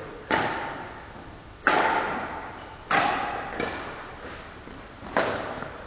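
Badminton rackets hitting a shuttlecock back and forth in a rally: four sharp hits about one and a half seconds apart, plus a fainter one in the middle, each echoing in a large sports hall.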